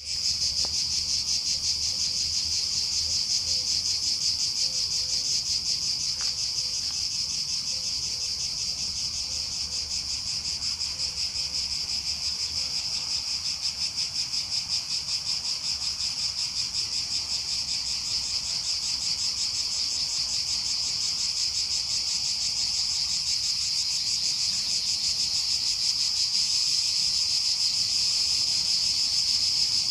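Cicadas singing together: a loud, steady high buzz with a rapid pulse in it, swelling slightly near the end.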